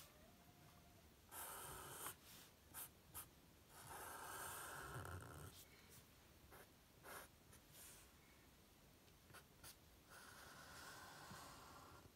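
Faint scratchy strokes of a Sharpie felt-tip marker drawn across drawing paper: a few longer strokes with short quick dabs between them.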